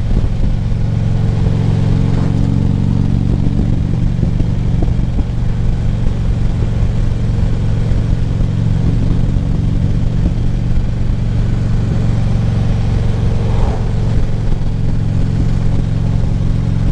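Harley-Davidson touring motorcycle's V-twin engine running at a steady cruise, heard from the rider's helmet mic.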